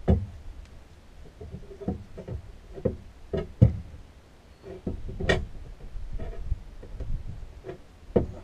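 Metal pry bar clanking and knocking against an outboard motor's mounting bracket on an aluminum boat while it is worked in to lever the motor off the transom. Several irregular clanks, the loudest about five seconds in.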